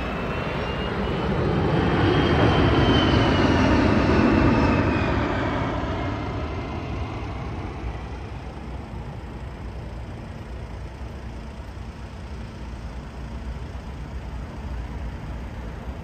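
Beriev Be-200 amphibian's jet engines running, swelling to their loudest a few seconds in with a high whine that rises and then falls, then settling into a steady, quieter drone.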